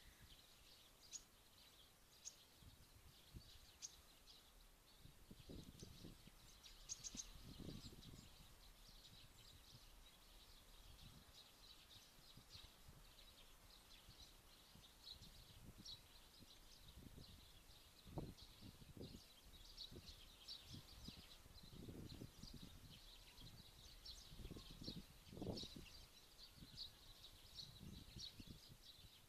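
Faint chirps of small songbirds, short calls scattered all through and coming in quicker runs in the second half, with a few low thuds and rumbles now and then.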